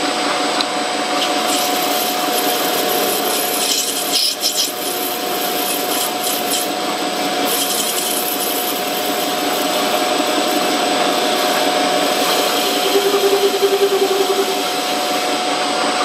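Metal lathe running with a steady whine, its cutting tool turning down the diameter of a spinning metal workpiece and throwing off chips. A brief extra hum comes in a few seconds before the end.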